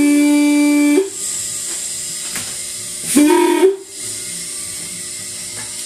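Single bell of a Nathan Airchime M-5 locomotive air horn sounding a steady note that cuts off about a second in, then a short second blast around three seconds in, with air hissing between. The owner takes the weak result for too little pressure in the air tank.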